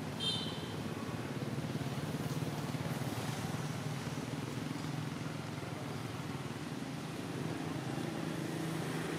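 A steady low motor hum, with one short high squeak about a third of a second in.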